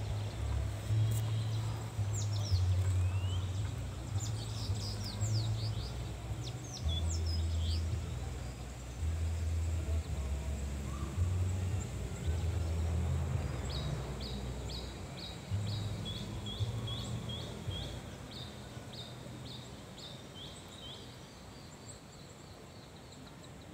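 Background music with low, held bass notes that change every second or so, and small birds chirping over it. From about halfway in, a bird repeats a short chirp about three times a second while the bass fades out.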